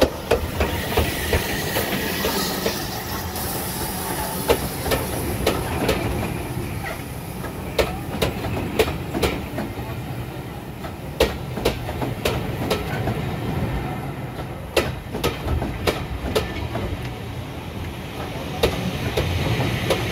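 A steam-hauled passenger train rolls slowly past close by: BR Standard Class 4 tank locomotive 80136, then its coaches. A steady rumble runs under sharp wheel clicks over the rail joints, coming in pairs and clusters as each bogie crosses. A hiss of steam sounds as the locomotive goes by in the first few seconds.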